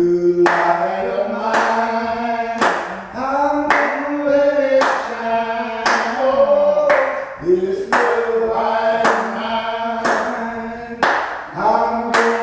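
Gospel singing in a church service: a sung melody with long held notes, with hand claps keeping a steady beat.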